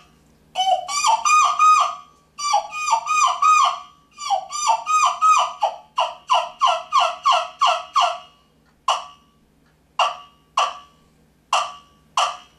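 Wooden turkey yelper call imitating a hen turkey: three runs of quick yelps, each note breaking from a higher to a lower pitch, then about five single clucks spaced apart near the end.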